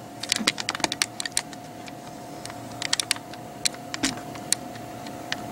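Quick, irregular taps and clicks on a laptop as the HSET test tool is operated. They come in three groups: a run of clicks from about a third of a second to a second and a half in, a few around three seconds, and more around four seconds. A faint steady tone sounds underneath.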